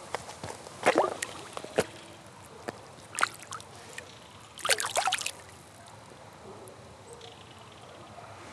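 A largemouth bass being released splashes into the water and kicks off: several sharp splashes in the first five seconds, the longest about halfway through, then only faint lapping water.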